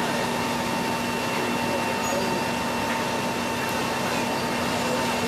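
Steady drone of heavy diesel machinery: a Liebherr R944C crawler excavator working debris with its grapple. A constant hum and an even hiss run through it, with no strikes or changes.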